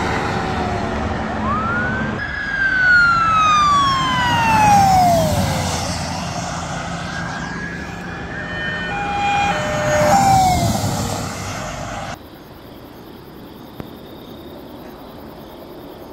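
Police cruiser sirens wailing as Virginia State Police cars speed past, over engine and road noise. One wail sweeps up and then falls steeply as a car goes by, followed by quicker yelping tones. About twelve seconds in, the sound cuts abruptly to a much quieter steady background.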